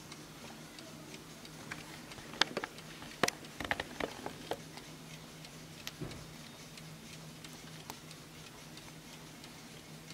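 1965 Hermle mantel clock's spring-wound mechanical movement ticking steadily. A few louder clicks and knocks come between about two and four and a half seconds in, and one more about six seconds in, as a hand handles the wooden case.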